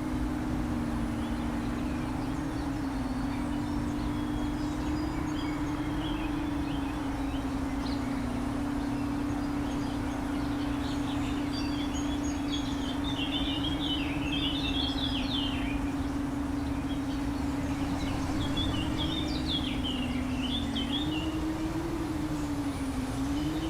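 Small FPV quadcopter's motors and props buzzing steadily, their pitch wavering slightly and rising and dipping near the end, with birds chirping in bursts over it.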